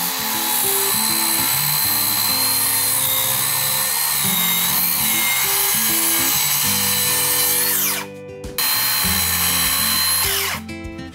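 Hitachi circular saw cutting through a pine board, running at full speed with a high whine. About eight seconds in the motor is released and winds down, then it starts again for a second short cut that winds down near the end.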